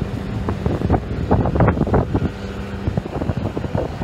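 Wind buffeting the microphone in gusts over the steady hum of a fishing boat's engine, with water churning around the hull.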